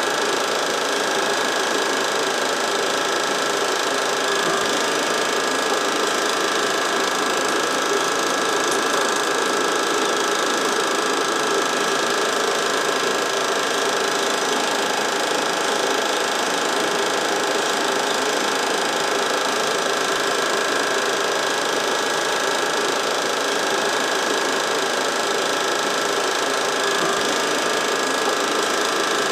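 Film projector running steadily, a continuous mechanical whirr and rapid clatter from its motor and film-advance mechanism, picked up while the old home movie was transferred.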